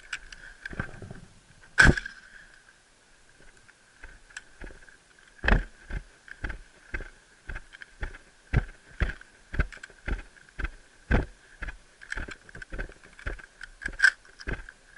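A single shotgun shot about two seconds in, followed a few seconds later by footsteps on dry sandy ground at about two steps a second.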